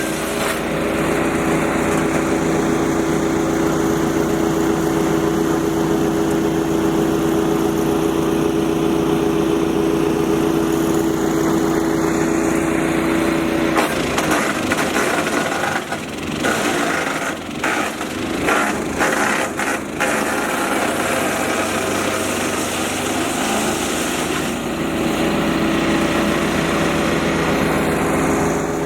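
Rock Machinery RX-13 wood chipper running, its Briggs & Stratton XR2100 420cc petrol engine at a steady speed. About halfway through, the engine note drops and a run of sharp cracking and crunching follows as wood is fed into the chipping drum; the engine pulls back to its steady speed near the end without stalling.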